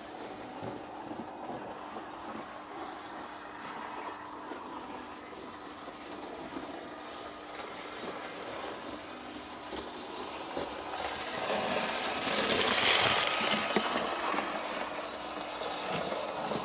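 Märklin E19 H0 model electric locomotive running light on Märklin metal M-track: a steady motor and wheel running noise with a faint constant hum. From about ten seconds in it grows louder as the locomotive comes close, loudest about thirteen seconds in, then falls away again.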